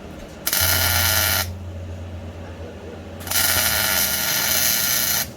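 Electric arc welder making two short welds on steel subframe connectors: a crackling, sizzling buzz lasting about a second, a pause, then a second one of about two seconds. A steady low hum runs underneath.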